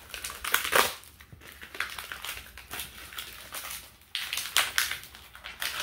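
Packaging being torn and pulled open by hand, with rustling and crinkling that comes in two loud bouts, near the start and again about four seconds in, as a pet brush is unwrapped.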